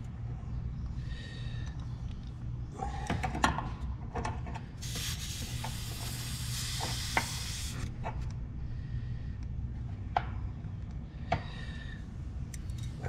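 Hands working on small fittings and a wire connector at an air-conditioner condenser's service valve: light clicks and handling sounds, with a hiss lasting about three seconds in the middle over a steady low hum.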